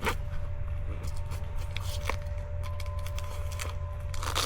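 Handling noise from a nylon hook-and-loop belt being fitted: scattered light clicks and scrapes, with a louder brief rustle near the end, over a steady low hum.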